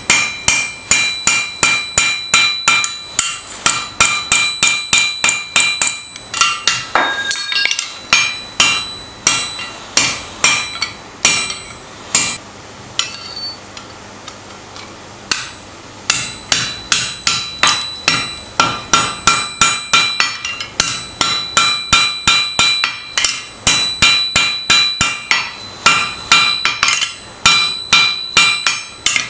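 Hammer blows on a hot chisel held against red-hot steel bar stock on a steel anvil, a steady run of about two to three strikes a second, each with a high metallic ring. About halfway through the blows stop for a few seconds, then start again.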